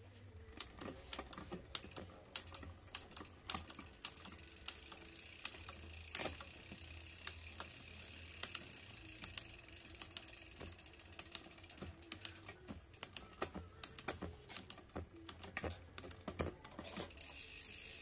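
Mountain bike drivetrain turning on a repair stand: the chain runs over the rear cassette with many irregular sharp clicks from the derailleur, chain and hub ratchet as the gears are worked, over a steady low hum.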